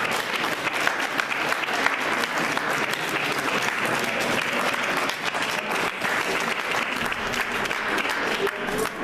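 Audience applauding, many people clapping steadily with some voices mixed in.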